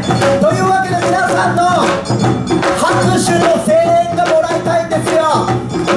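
Awa odori dance music playing: a bending melody line over steady percussion.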